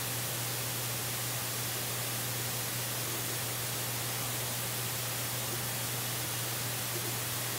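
Steady, even static hiss with a constant low hum underneath; no calls or other events.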